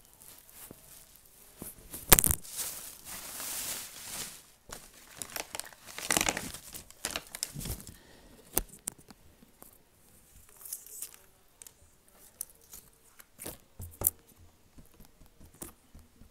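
Something being torn and crinkled: two longer noisy bursts in the first half, then scattered sharp clicks and short crinkles.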